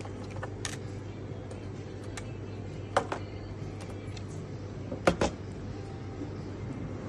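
Steady low hum with scattered light clicks, and two sharper clicks about three and five seconds in, the second a quick double.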